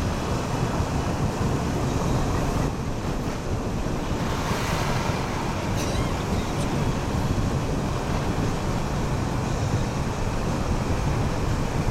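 Wind buffeting the microphone: a steady, low, rushing noise that swells and fades without a break.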